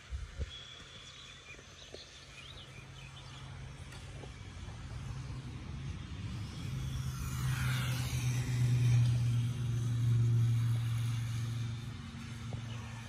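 Low vehicle hum that swells to its loudest about nine seconds in and then fades, with a brief higher whine sweeping up and down around seven seconds in.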